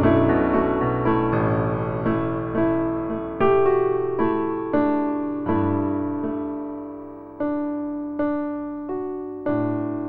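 Soft piano background music, slow notes struck one after another and left to fade.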